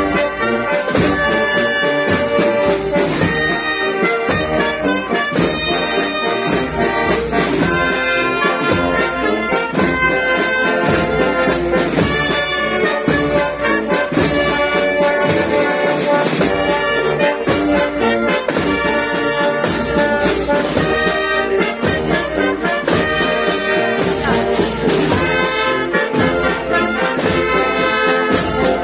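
Live brass band playing a processional march, with the tuba carrying the bass under the brass and drum strokes running through it.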